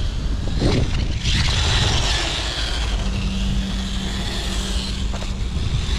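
Losi Mini LMT 1/18-scale RC monster truck driving on skate-park concrete. Its 380-size 25-turn electric motor and drivetrain set up a high whine with tyre noise about a second in, lasting until near the end. A low rumble of wind on the microphone runs under it.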